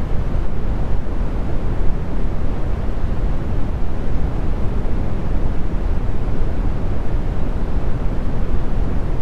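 Brown noise: a steady, deep rumbling hiss, strongest in the bass and falling off toward the treble, with no changes or events.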